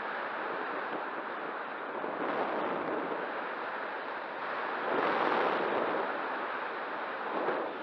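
Wind rushing over the microphone in a steady roar, gusting louder about five seconds in.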